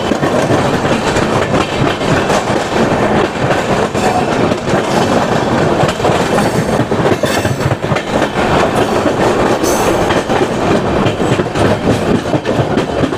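Indian Railways passenger train running, heard from the open doorway of a coach: a steady rumble with the wheels clattering irregularly over rail joints and points.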